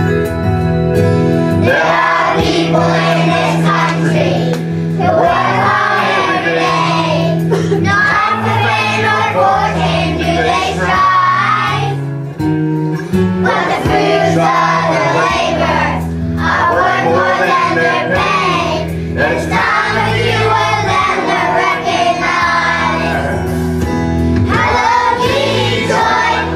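A group of young children singing together over instrumental accompaniment, in phrases with short breaks. The singing comes in about two seconds in.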